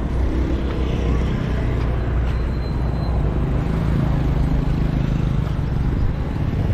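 Steady road noise from riding through traffic in an open vehicle: a low engine hum with wind rumble on the microphone.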